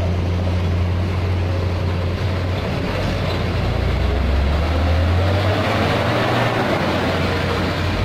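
Hino 500 concrete mixer truck's diesel engine running as the truck pulls forward and passes close by. A deep steady hum shifts in pitch about halfway through, and a louder, rougher engine noise builds toward the end as the truck comes alongside.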